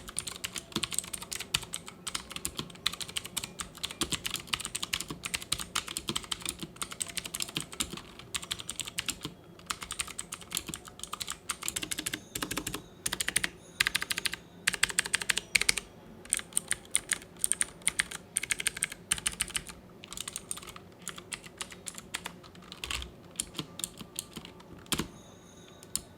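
Typing on a Rapoo V500 Pro mechanical keyboard with Rapoo's clicky blue switches, said to be Kailh-made: rapid keystroke clicks in runs separated by short pauses, thinning to a few scattered presses near the end.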